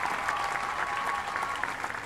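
Spectators clapping at a tennis point, with a long held high tone over the applause that stops about one and a half seconds in.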